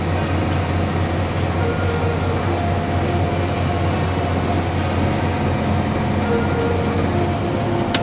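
Tractor engine running steadily, heard inside the closed cab: a constant low hum with faint steady whines above it, while the tractor pulls a chaser bin alongside a combine harvester that is unloading into it.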